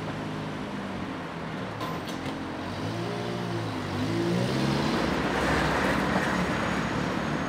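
City street traffic: cars driving past on a wet road. One car's engine note rises and falls as it passes about three seconds in, then the traffic noise swells louder for the rest.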